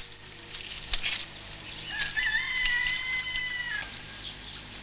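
A rooster crowing once, a long call that starts with a wavering rise and is then held for nearly two seconds. In the first second there are two sharp knocks before it.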